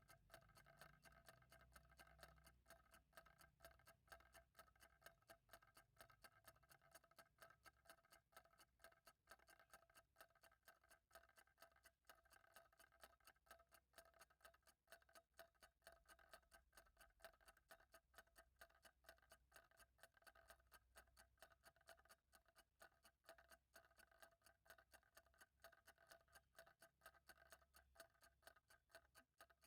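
Faint, steady ticking of a clock, the ticks evenly spaced and continuing without a break.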